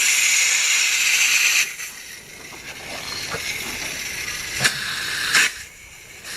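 Water under pump pressure spraying and hissing out of an open fitting on a water pipe. It is loud for about the first second and a half, then settles to a quieter steady spray with two short louder spurts near the end.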